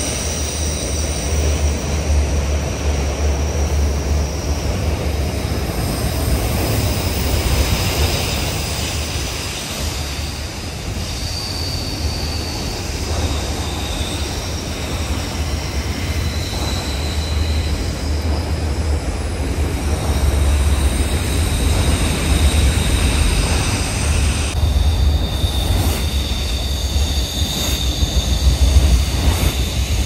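BNSF freight train of autorack cars rolling past below: a steady low rumble of wheels on rail, with thin high wheel squeals coming and going as the cars take the curve.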